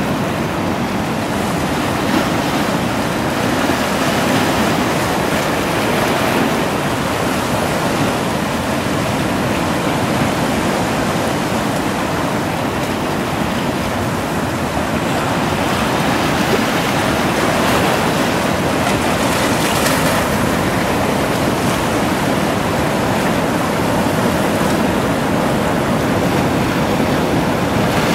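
Sea surf washing against shoreline rocks: a steady rush of water that swells and eases a little, turning somewhat hissier about two-thirds of the way through.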